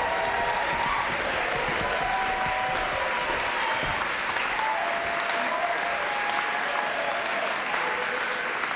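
Audience applauding steadily, a dense mass of clapping with a few faint voices in the crowd.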